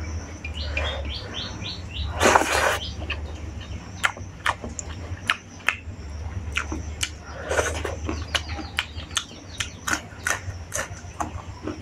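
Close-miked eating sounds: fingers squishing and mixing rice and curry on a plate, then crisp chewing with many sharp mouth clicks, biting into a raw green chilli near the end. A steady low hum runs underneath.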